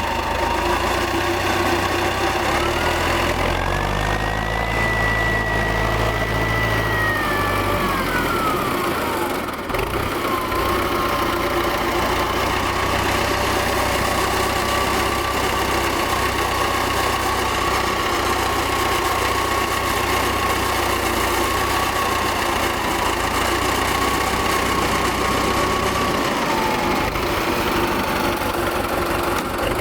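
T-40AM tractor's D-144 air-cooled four-cylinder diesel running. It revs up a few seconds in with a rising whine, holds the higher revs for several seconds, then drops back about nine seconds in and runs steadily at lower speed.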